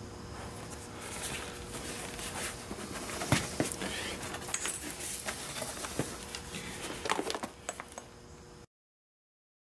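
Handling noise: rustling with scattered clinks and knocks as leather welding gloves go on and a MIG welding gun is taken up, over a faint steady hum. The sound cuts to silence about a second before the end.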